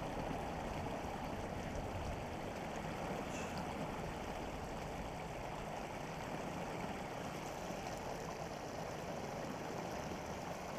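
Water spilling over a small concrete weir, a steady rushing.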